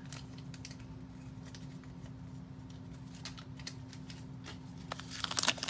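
Steady low hum with a few faint clicks. In the last second or so a plastic blind-bag wrapper is handled, crinkling and rustling.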